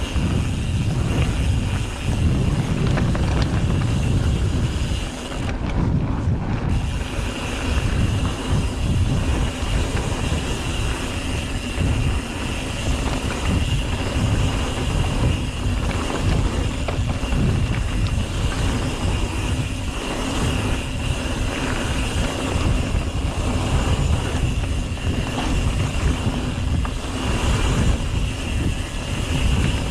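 Mountain bike riding down a trail: a continuous rumble of tyres over the ground with many quick knocks and rattles from bumps, and wind on the microphone. A steady high whine runs through most of it, beginning about six seconds in after a brief dip.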